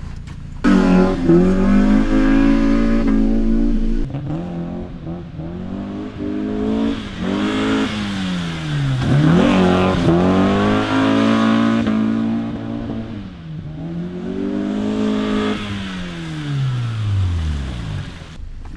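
Car engine revving up and down over and over, its pitch climbing and dropping several times before falling away near the end.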